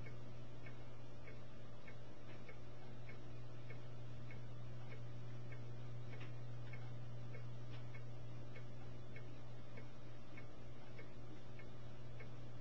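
A steady low hum with a faint, evenly repeating ticking over it, about two or three ticks a second.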